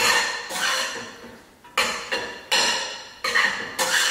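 A utensil knocking and scraping against a stainless steel pot while penne and pesto are stirred: six ringing clanks, one every half second to a second, each fading before the next.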